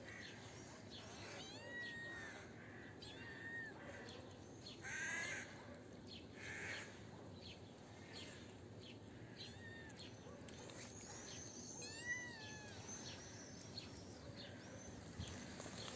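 Birds calling and chirping, with cats meowing among them, in many short calls scattered throughout. A few louder calls come about five and seven seconds in.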